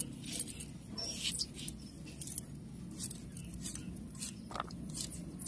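Knife slicing through raw pumpkin flesh held in the hand: a run of short, crisp cuts, about two a second.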